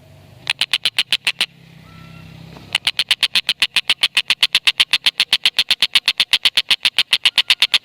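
Stork-billed kingfisher giving its rapid cackling "ngekek" call, a fast even string of sharp notes at about eight a second. It breaks off twice near the start, then runs on without a pause.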